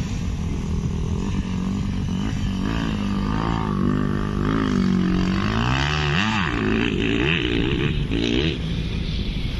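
Motocross dirt bike engine revving, its pitch climbing and dropping several times as the rider works the throttle and gears, with one sharp rise and fall a little past the middle.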